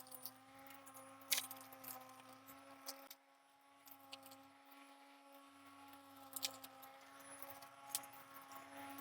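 Ryobi cordless lawnmower running steadily with an even electric-motor hum, while scattered sharp clicks and ticks come through as it cuts rough, overgrown grass.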